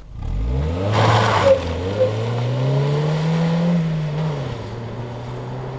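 Car engine starting and revving, then pulling away. Its note rises for the first few seconds, then drops and settles to a steady drone.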